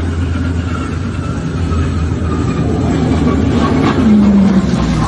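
A vehicle running with a steady low rumble and faint drifting tones above it. A short louder hum comes about four seconds in.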